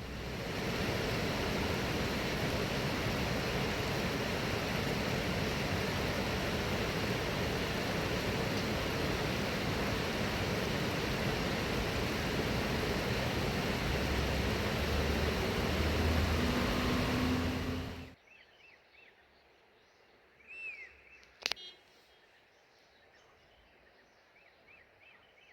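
A steady, even rushing noise that cuts off suddenly after about eighteen seconds, followed by a few faint bird chirps and a single sharp click.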